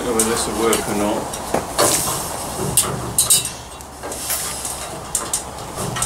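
Aluminium extension ladder clinking and knocking as a man climbs down it, boots and hands striking the metal rungs in irregular sharp clicks.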